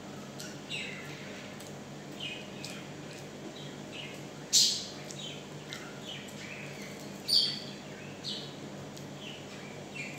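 Close-miked mukbang eating sounds: chewing and lip-smacking on fried chicken and rice, a steady run of small wet clicks and smacks. Two sharper, louder clicks stand out, about four and a half and seven and a half seconds in.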